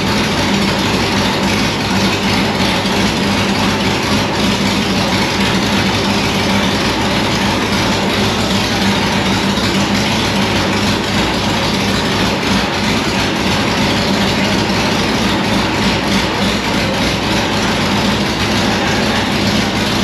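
Chevy small-block V8 in a Lola T70 race car running on a chassis dyno, loud and steady at one engine speed without revving.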